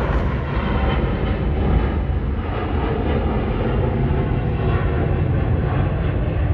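Jet engine noise from a Virgin Atlantic Boeing 787-9 Dreamliner climbing out after take-off, its Rolls-Royce Trent 1000 turbofans heard from the ground as a loud, steady low rumble.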